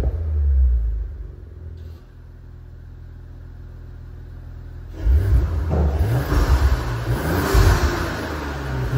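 Audi S4 B9's 2.9-litre V6 through a valved, resonator-delete aftermarket exhaust. A loud rev dies down into a steady, quieter idle. About five seconds in, the engine is suddenly revved again, several times over, its note rising and falling with each blip.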